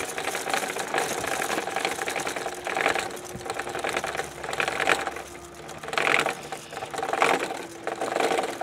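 Geared hand winder cranked fast, winding up the braided rubber motor of a free-flight model airplane: a steady rapid clatter of gears with louder surges every second or so. It stops abruptly near the end.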